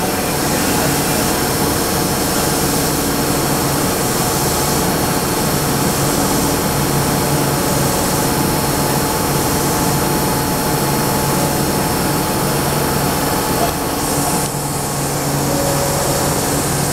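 Osaka Metro 30000 series subway train standing at the platform, a steady loud hum and rush of its running equipment with faint steady tones, dipping slightly about 14 seconds in.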